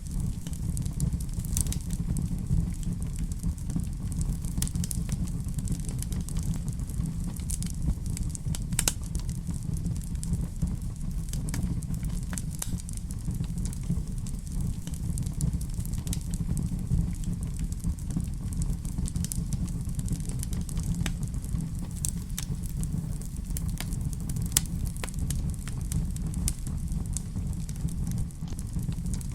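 Wood fire burning in a fireplace: a steady low rumble of the flames with frequent, irregular sharp crackles and pops.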